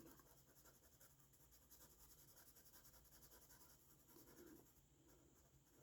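Near silence with faint scratching of drawing strokes on a sketch.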